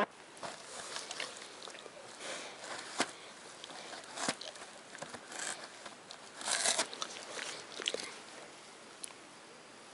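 Newfoundland dog chewing and tearing a cardboard box: irregular crunching, crackling and ripping of the cardboard with sharp snaps, loudest in a burst about two-thirds of the way through and quieter near the end.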